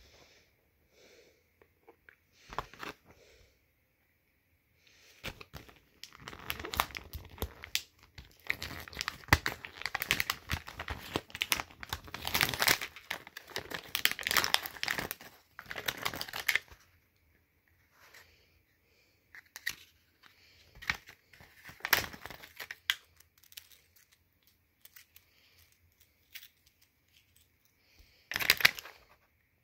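Cardboard-and-plastic blister pack of a toy fingerboard being torn open and crinkled by hand: a long stretch of tearing and crackling from about six to seventeen seconds in, then scattered crinkles and one sharp rip near the end.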